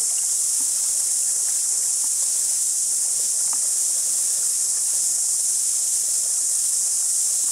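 Steady high-pitched insect chorus: a continuous, even buzzing hiss with no breaks or beat.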